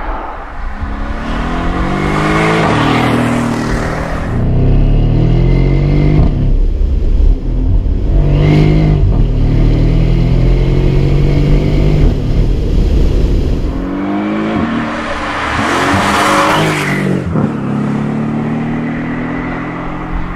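Mercedes SL 63 AMG's twin-turbo V8 accelerating hard, its note rising in pitch through each gear and dropping at every upshift, several times over.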